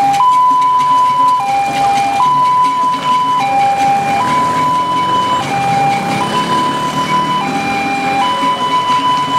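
Two-tone emergency-vehicle siren sounding a steady hi-lo pattern: a higher note held about a second, then a shorter lower note, over and over. Beneath it, cars drive slowly past on a dirt road.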